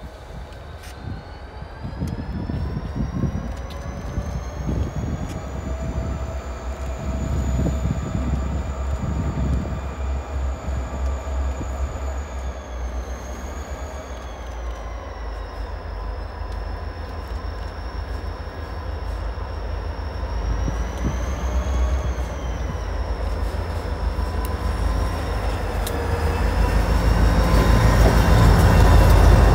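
Several diesel-electric freight locomotives working in multiple approach and pass close by. A whining engine note rises over the first few seconds and then holds, over a deep rumble that grows steadily louder until the lead units go by near the end.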